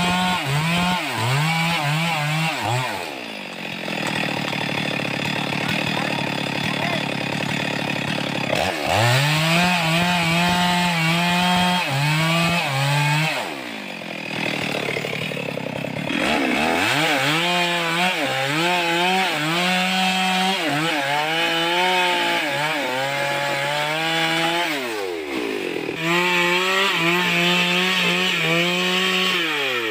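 Two-stroke chainsaw cutting through a log, its engine note wavering and pulling down under load. It drops back to idle three times, about 3, 13 and 25 seconds in, and revs up again into the next cut each time.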